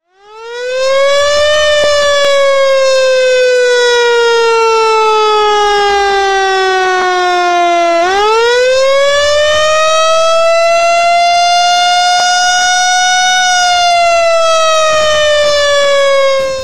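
Siren wailing: a loud, long, pitched wail that fades in and rises, sinks slowly for several seconds, sweeps back up about halfway through, then sinks again near the end.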